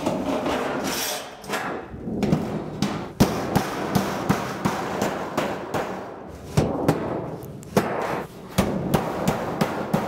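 Galvanized sheet-metal panels clattering as they are fitted together, then a series of uneven hammer blows on the sheet-metal seam, closing the Pittsburgh lock over to join the plenum's sides, with the thin sheet ringing and rattling under each strike.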